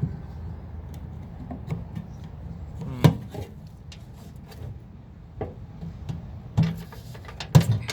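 Scattered knocks, clicks and scraping as a microwave's casing and back panel are handled and worked loose, with sharper knocks about three seconds in and near the end.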